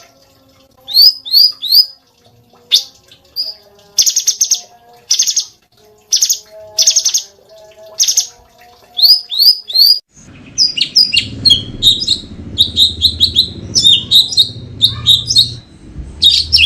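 Cucak cungkok song: loud harsh buzzy calls alternating with quick upward-slurred whistled notes, often in threes. About ten seconds in, the phrases run together into a dense, fast chatter over a low rumble.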